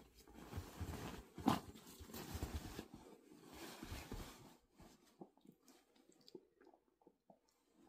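Faint rustling and scratching of a duvet as a toy poodle noses and digs into it, with one sharp crunch about a second and a half in; the sound dwindles to a few small ticks in the second half.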